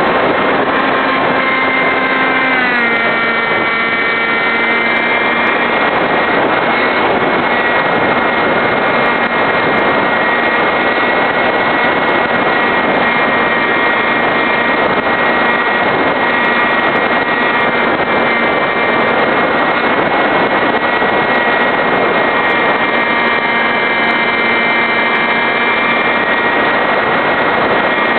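Electric motor and pusher propeller of a Skysurfer foam RC glider running in flight, a steady whine over rushing air, heard from on board the plane. The whine steps down in pitch about three seconds in.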